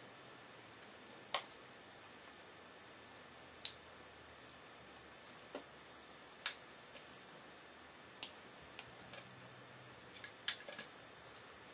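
Plastic Lego bricks clicking as pieces are handled and pressed together: about ten short, sharp clicks at irregular intervals, a few close together near the end.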